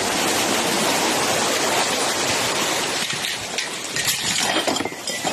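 Heavy rain pouring down, a dense steady hiss, with a few sharp knocks and clatters in the last couple of seconds.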